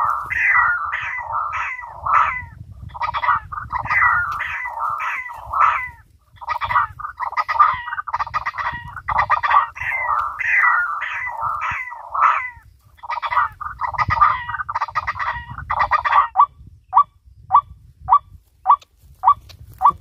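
White-breasted waterhen (ruak-ruak) calls played as a lure through a small horn loudspeaker: a fast, harsh run of croaking notes at about three a second, changing about sixteen seconds in to short, clipped single notes at about two a second.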